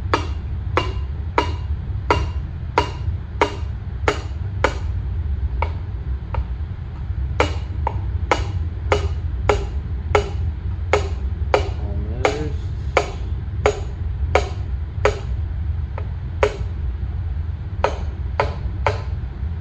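Gentle, evenly spaced taps, about one and a half a second, from the non-metal end of a hammer driving a piston with compressed rings down into the cylinder bore of a Ford 8N engine. The taps pause briefly about five seconds in and then resume until the piston is seated. A steady low hum runs underneath.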